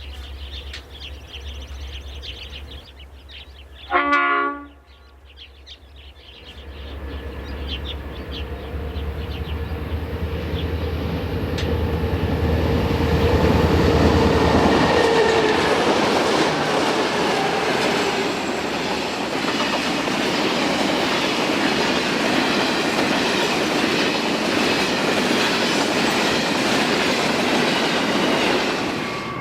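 Diesel freight train: a short horn blast about four seconds in, then the train draws closer and passes, building to a loud, steady rumble and clatter of wheels and wagons.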